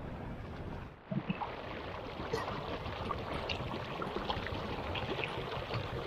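Water splashing and churning around a small boat on a pond. There is a brief drop about a second in, after which the splashing is denser and crackles with droplets.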